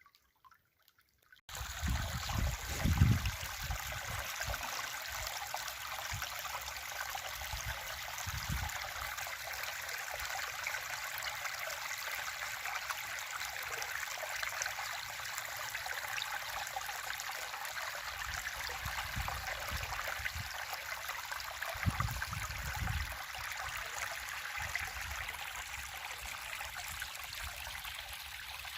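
River water flowing steadily in a stream, a continuous rushing and trickling that starts about a second and a half in after near silence. Occasional low rumbles come and go, the loudest about three seconds in.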